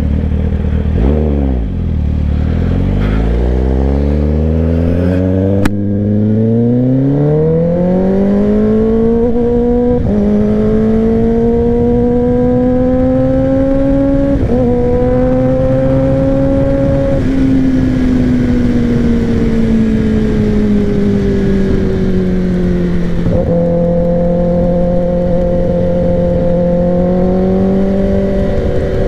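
Sportbike engine pulling away from low revs, its pitch climbing steadily for about fifteen seconds with a couple of small steps along the way. It then slowly falls as the throttle eases, and holds steady near the end.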